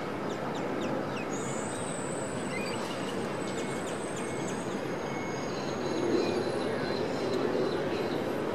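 Steady city traffic rumble with a long, thin, high-pitched metallic squeal from about a second in until about six seconds, typical of tram wheels squealing on the rails. A few short high chirps sound over it.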